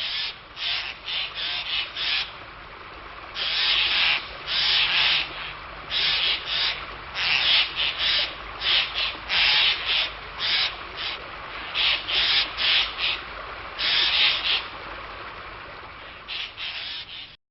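A wild bird giving a long series of short, scratchy calls without a clear pitch, one to three a second, some run together in quick strings.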